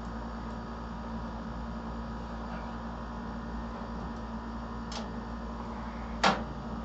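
Motherboard being screwed into a PC case: a steady low hum and hiss with two short sharp clicks of the screwdriver and screws, the second and louder one about six seconds in.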